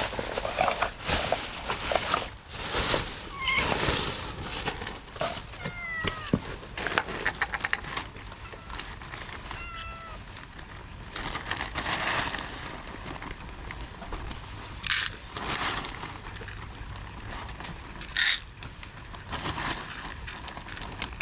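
Cats meowing, several short meows in the first half, among rustling and crackling noises.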